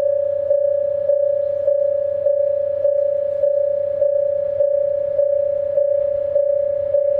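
Electronic warning bell of a Japanese railway level crossing ringing: one steady tone struck over and over, a little under twice a second.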